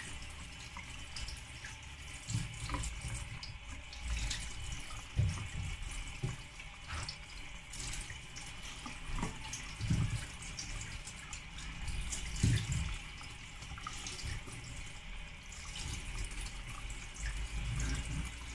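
Kitchen tap running into a sink as mackerel pieces are rinsed in a wire basket, with scattered knocks as the pieces are handled and set down.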